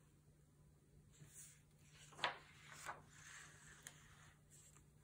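A paperback picture book's page being turned by hand: a soft paper swish with a sharp tap about two seconds in and a lighter one just after, over a faint steady hum.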